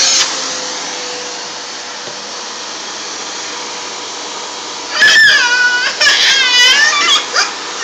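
Household vacuum cleaner running steadily with a faint even hum. About five seconds in, a baby breaks in with several loud, high-pitched squeals.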